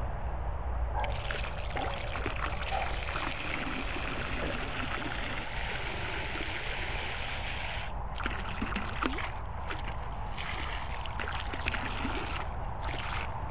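Water spraying and splashing into a paddling pool in a steady hiss that comes up about a second in and breaks off briefly a few times near the end.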